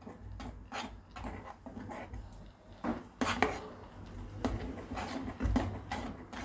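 Metal spoon stirring custard in a coated cooking pot, scraping and clinking against the sides and bottom in irregular clicks, with a few louder knocks about three seconds in and again near five seconds.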